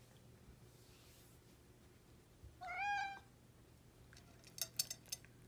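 A hungry orange tabby kitten meows once, a short call a little over halfway through. Near the end come a few quick clicks as it eats from its bowl.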